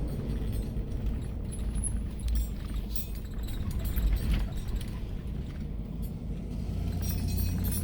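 A car driving on a dirt road, heard from inside the cabin: a steady low rumble with scattered rattles and clicks.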